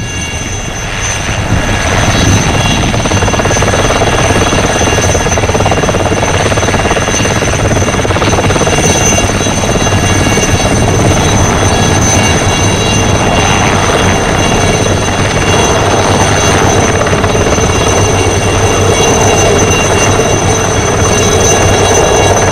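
Alouette III helicopter's Artouste turboshaft engine and main rotor running at take-off power as it lifts off and hovers: a high steady turbine whine over dense rotor noise, growing louder over the first two seconds and then holding steady.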